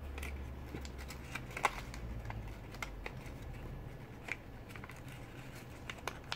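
Square of colored origami paper being folded and pressed by hand: scattered crisp crinkles and clicks as flaps are tucked and creased, the sharpest about a second and a half in.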